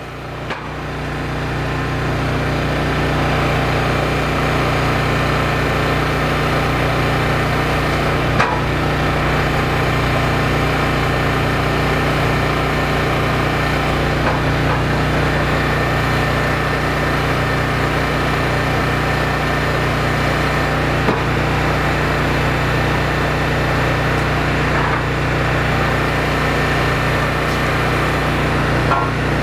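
Engine of a Wolfe Ridge compact commercial hydraulic log splitter running steadily at a constant speed, with a few sharp knocks of log rounds being set onto its steel rack and table.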